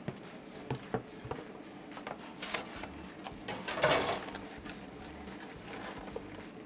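Cardboard pizza box being handled and its lid folded shut: scattered light taps and rustles, with a louder scraping rustle about four seconds in.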